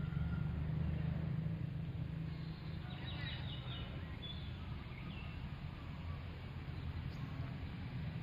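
Outdoor ambience: a steady low rumble, with a short burst of quick high bird chirps about three seconds in and a few fainter chirps later.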